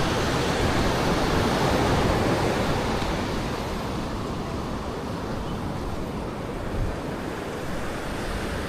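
Sea surf washing onto the beach, fuller in the first couple of seconds and then gradually easing off.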